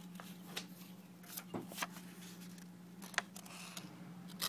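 Faint handling noises: scattered light clicks and short rustles, over a steady low hum.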